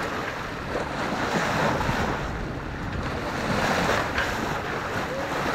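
Sea water rushing and splashing past a sailboat's bow as it moves under way, with steady wind buffeting the microphone.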